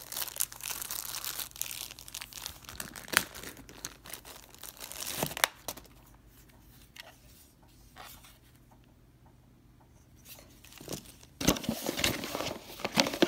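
Clear plastic bags crinkling and rustling as packaged accessories are handled, with a few sharp clicks. It goes quiet for a few seconds in the middle, then loud crinkling starts again near the end.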